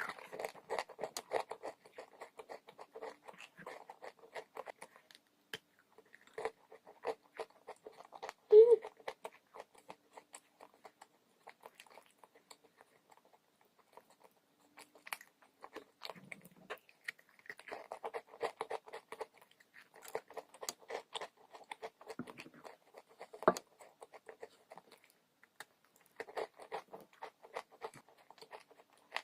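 A person biting and chewing crunchy dry chalk: dense crackling chews in several spells separated by short pauses, with a sharp, loud bite about eight and a half seconds in and another near twenty-three seconds.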